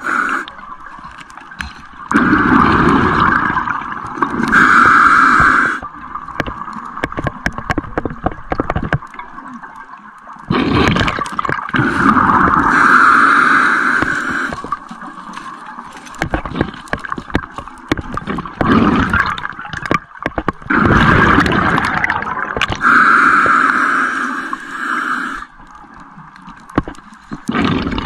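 Scuba diver's regulator underwater: three long gurgling rushes of exhaled bubbles several seconds apart, in a slow breathing rhythm. Quieter stretches in between carry scattered clicks.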